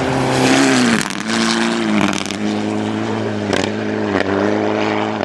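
Rally car engine driven hard close by, the pitch dropping sharply several times and climbing again between drops, with sharp cracks across the sound.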